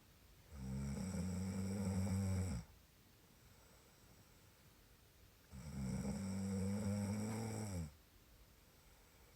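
Someone sleeping and snoring: two long, low snores, each about two seconds, some five seconds apart.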